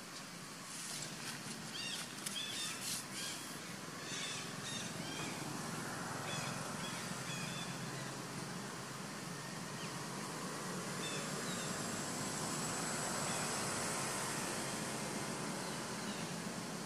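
A quick run of about ten short animal calls, crowded together between one and four and a half seconds in. Under them runs a steady outdoor background hiss that swells in the second half.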